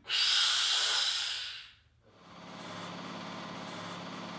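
Compressed air hissing as a filter integrity tester starts a bubble point test and pressurises the wetted filter. A loud hiss lasts under two seconds, then a steadier, quieter hiss with a low hum underneath.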